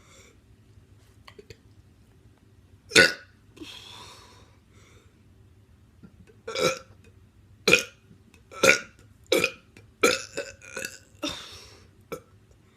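A teenager burping: one loud burp about three seconds in, then a quick run of seven or eight short, sharp burps in the second half.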